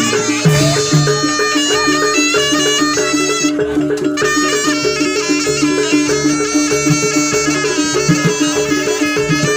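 Jaranan gamelan music: a shrill double-reed trumpet (slompret) plays a wavering melody over a steadily repeating pattern of pitched gong-chime notes. The reed drops out for a moment about halfway through.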